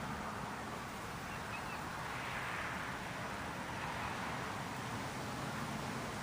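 Steady outdoor background of wind and distant street traffic, with no distinct events.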